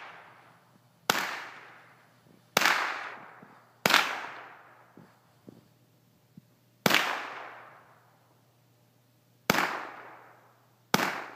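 AR-15-style .22 rifle firing six single shots at uneven intervals, each crack trailing off in an echo for about a second.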